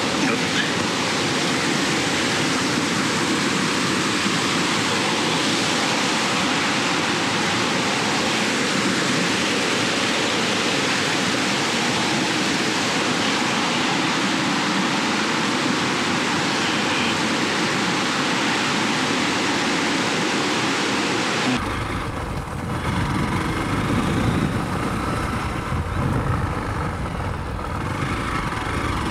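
A rocky mountain stream rushing, a steady even wash of water noise. About three quarters of the way through it cuts abruptly to a Hero Xpulse 200 single-cylinder motorcycle riding along a rough dirt track, its engine a low running rumble.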